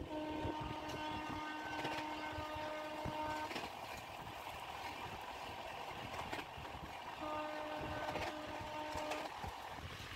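A passenger train's locomotive horn sounding two long blasts, the first lasting about three and a half seconds and the second starting about seven seconds in and lasting about two seconds, over the steady rumble and clatter of the coaches on the rails as the train runs through a station without stopping.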